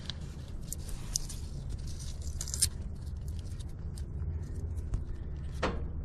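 Tape being pulled off the roll and wrapped around a loose wire end, short crackles and scrapes, the sharpest about two and a half seconds in, over a steady low hum.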